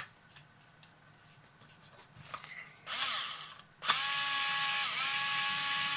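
A few faint clicks of plastic parts being handled. About four seconds in, a cordless screwdriver starts up and runs steadily with a whine, driving a screw into a model bulldozer's roller assembly. Its pitch dips briefly about a second after starting.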